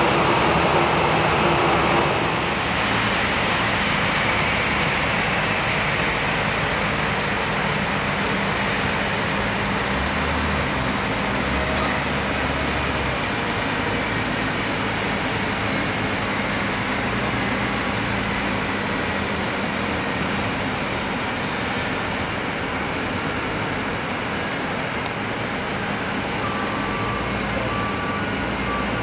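Boeing 737-800 running at its stand: a steady jet rush with a low hum. A reversing beeper sounds several short beeps near the end.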